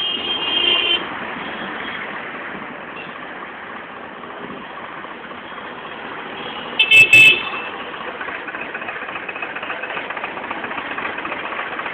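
Road traffic noise of a moving vehicle, with a vehicle horn sounding briefly at the start and a loud double honk about seven seconds in; an engine runs steadily after it.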